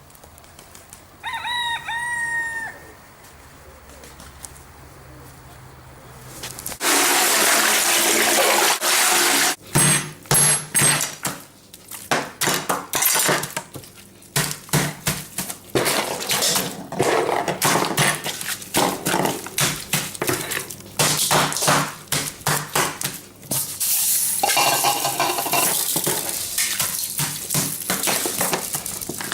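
A rooster crows once, briefly, about a second in. From about seven seconds a loud hiss follows, then a long run of rapid knocks and clatter.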